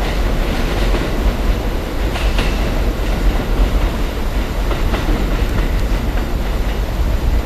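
Electric limited express train running on the rails: a steady rumble with a few faint clicks of wheels over the rail joints.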